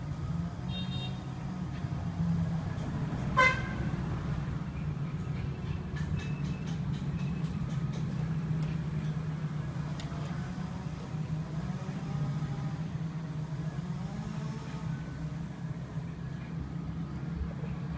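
Steady low rumble of background street traffic, with one short horn beep about three and a half seconds in.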